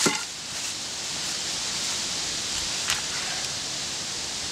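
Steady outdoor hiss with rustling in dry fallen leaves as someone moves about a log. A knock comes at the start and a softer click about three seconds in.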